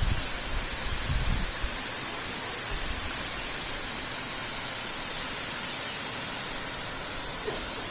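Waterfall's water rushing in a steady, even hiss. A few low rumbles in the first second and a half.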